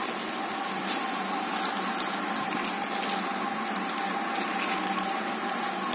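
Steady background hiss with a faint hum, even in level throughout, with a few faint rustles of the laptop's plastic sleeve being handled.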